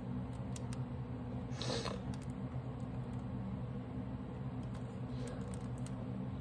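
Steady low background hum, with a few faint clicks and a short rustle a little under two seconds in as a small handheld MP3 player is handled.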